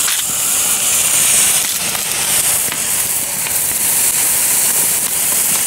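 Golden Orange ground fountain firework spraying sparks with a steady, loud hiss.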